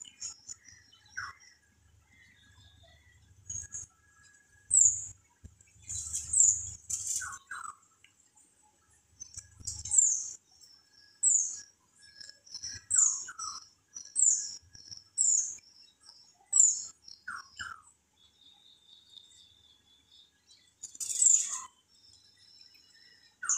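A bird chirping over and over: short, high, falling chirps, roughly one every second or so, some with a lower note alongside, and one louder call near the end.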